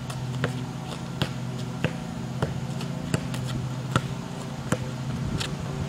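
A basketball being dribbled, bouncing about every two-thirds of a second, over a steady low hum.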